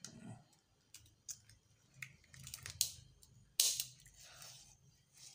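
Wet river fish being handled in an aluminium basin: a string of short scrapes, slaps and knocks against the metal, the loudest about three and a half seconds in.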